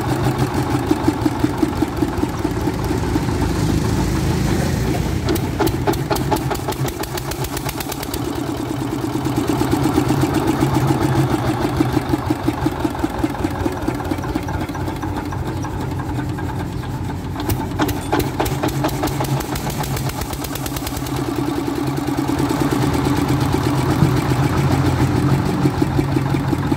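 Kirloskar 7.5 kVA generator set's diesel engine running with a fast, even beat. Its level swells and eases a few times.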